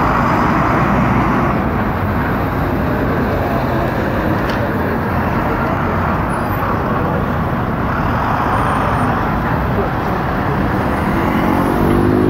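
Steady city street traffic: the engines of buses, vans and cars running as they pass and wait at a junction. Near the end one vehicle's engine rises in pitch as it speeds up and pulls away.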